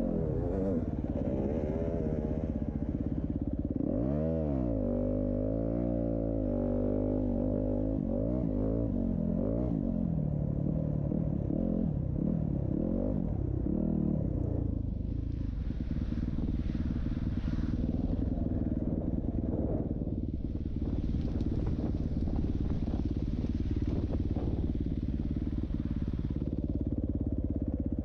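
Dirt bike engine running hard on a motocross course, its pitch swinging as the throttle opens and closes, with a quick rise and drop about four seconds in. A rushing hiss comes in over it in the second half.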